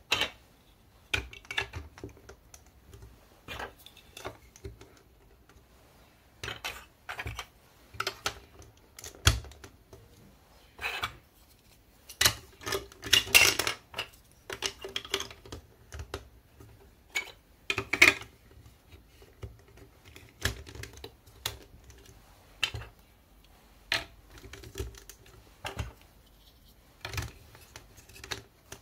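Large-stud plastic building blocks and marble run track pieces clicking and clacking as they are handled and pressed together, in irregular knocks with a denser run of clatter about halfway through.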